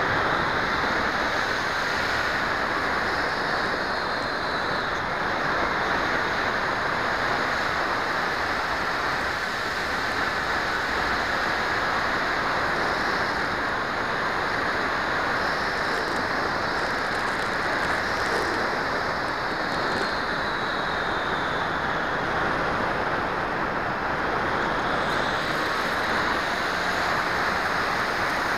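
Steady rushing wind noise on a small keychain camera's microphone as it flies at altitude, with a faint high whine that rises and falls a few times.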